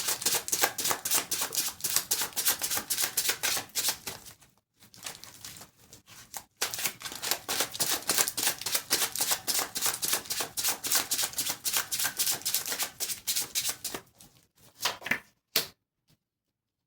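A deck of tarot cards being shuffled by hand: two long bouts of fast, rapid card flutter with a short pause between, then a few separate card snaps near the end.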